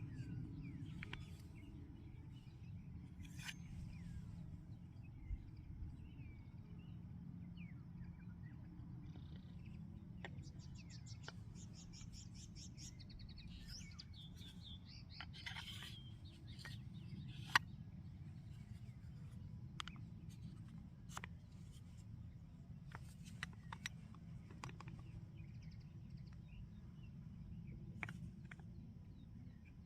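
Birds chirping and calling, including a rapid trill, over a steady low outdoor rumble, with a few sharp clicks; the loudest click comes about two-thirds of the way through.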